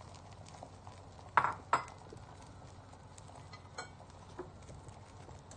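Two sharp knocks of cookware on the gas stove about a second and a half in, then two lighter clicks, over the faint sizzle of an egg and moringa omelette frying in a nonstick pan.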